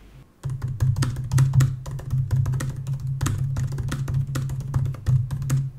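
Fast typing on the 16-inch 2019 MacBook Pro's scissor-switch Magic Keyboard: a quick, uneven run of key clicks starting about half a second in, over a low steady hum.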